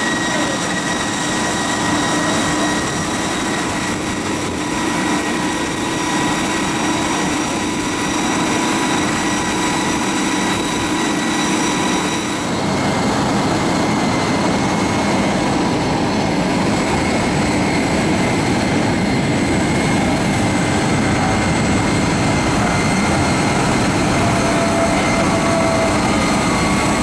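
Steady loud engine noise, a broad roar with a constant high whine over it, shifting in character about twelve seconds in.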